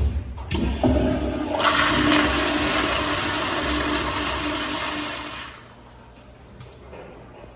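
American Standard commercial flush-valve fixture flushing. A click or two is followed by a brief hiss. Then a loud rush of water lasts about four seconds and tapers off.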